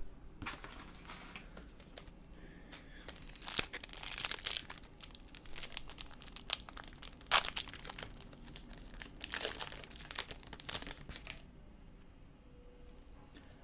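Trading-card pack wrapper crinkling and tearing in irregular bursts as a pack is opened, stopping shortly before the end.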